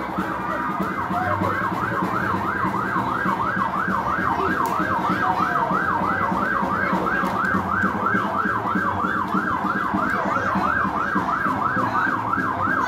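Emergency vehicle siren on a fast yelp, its pitch sweeping up and down about three to four times a second without a break.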